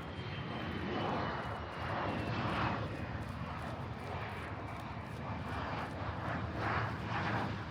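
Jet aircraft flying past: a steady rushing engine noise with a faint high whine that slowly falls in pitch.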